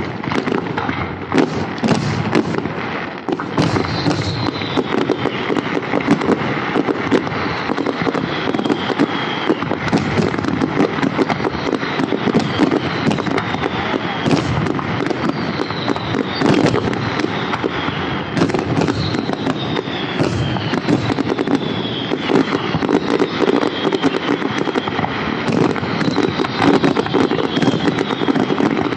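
Fireworks display: a dense, continuous barrage of shell bursts and crackling, with a series of high whistles that fall in pitch.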